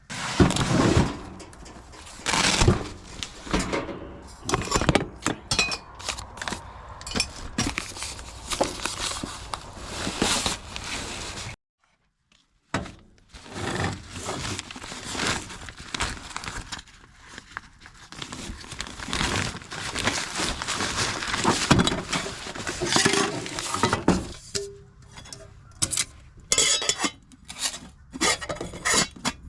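Camp cookware and utensils being handled: pots, lids and metal utensils clattering and clinking in irregular sharp knocks, with a brief total break about twelve seconds in.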